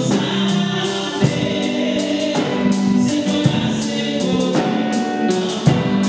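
Two women singing a gospel song together into handheld microphones, held notes shifting in pitch over a regular beat.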